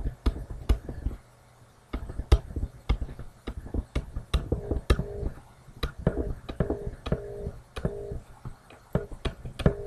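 Stylus tapping and scratching on a pen tablet while words are handwritten: irregular sharp clicks and taps, several a second.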